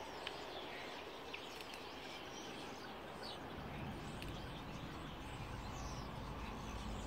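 Quail chick peeping: short, high peeps scattered about every second or so. A low rumble grows underneath from about halfway through.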